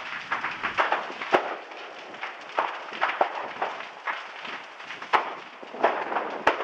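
Bubbling lava lake in Kilauea's overlook vent crackling and popping: irregular sharp pops several times a second, with a few louder cracks, about one and a half seconds in, about five seconds in and near the end.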